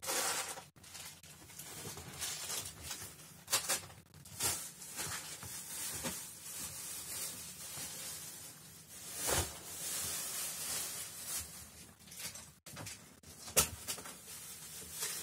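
A cat grooming itself at close range: soft wet licking and rustling of fur, broken by a few short, sharper sounds at irregular moments.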